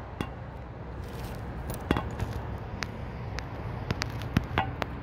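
2005 Mustang GT's 4.6-litre V8 with a Steeda aftermarket exhaust idling after a cold start: a steady low rumble from the tailpipes. Several sharp clicks and knocks sound over it, one about two seconds in and a few near the end.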